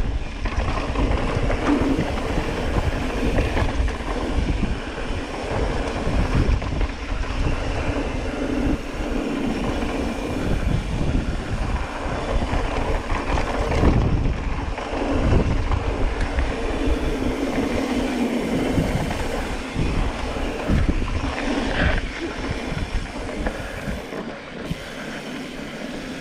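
Mountain bike riding fast down a rough dirt trail: constant wind rumble on the camera's microphone, with tyres and frame rattling and knocking over rocks and bumps. It quietens near the end as the bike slows.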